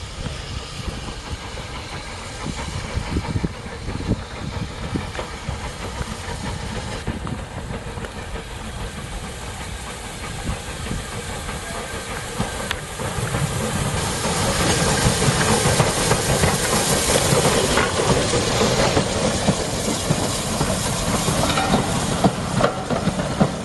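A small saddle-tank steam locomotive hauling coaches approaches and passes close by. It grows louder about halfway through, with steam hissing, and then the coaches' wheels click over the rail joints as they roll past.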